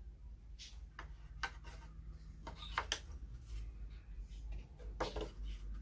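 Scattered light clicks and taps of a cello top and a glue brush being handled on a workbench, with a sharp double click about three seconds in and a short rustle near the end, over a low steady hum.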